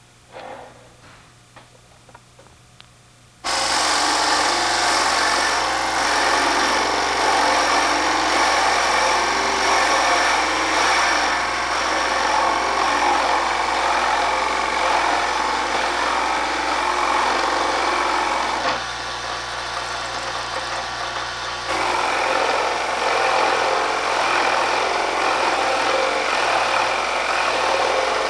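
Carbatec mini wood lathe starting up suddenly about three seconds in and running steadily while a Forstner bit, held in a drill chuck in the tailstock, bores into the centre of a spinning cherry bowl blank. The sound eases for about three seconds past the middle, then comes back as loud as before.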